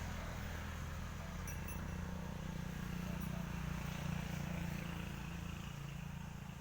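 A steady low hum with a faint hiss above it, swelling slightly a few seconds in.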